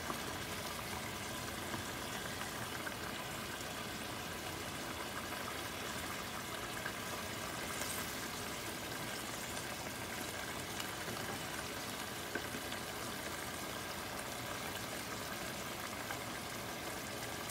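Salted-fish stew simmering in a pan on a gas burner: a steady bubbling, sizzling hiss, with a few faint knocks from a wooden spoon stirring it.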